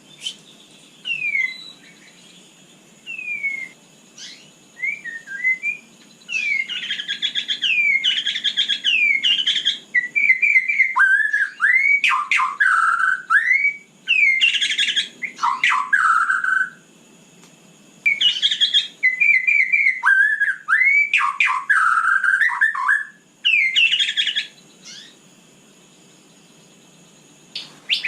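White-rumped shama (murai batu) singing: loud, varied phrases of clear whistles, fast sweeping notes and rapid warbles, coming in bursts of a few seconds with short pauses between them.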